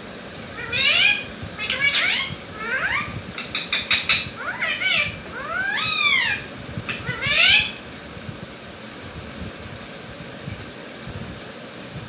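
Rose-ringed parakeet giving a string of loud calls that sweep up in pitch and arch over, several in quick succession, stopping near the 8-second mark. A steady hum runs underneath.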